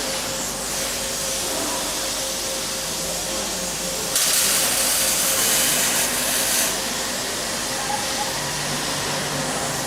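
Automatic arc welding machine at work: a steady hiss over a faint steady hum. A louder, sharper hiss comes in about four seconds in and lasts about two and a half seconds.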